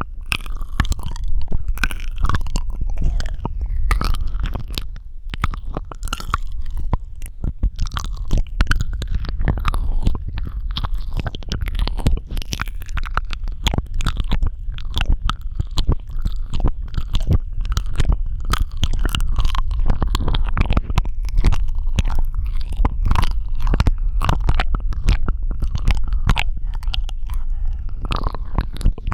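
Close-miked ASMR mouth sounds: a dense, continuous run of wet clicks, smacks and squelches from tongue and lips, over a low rumble.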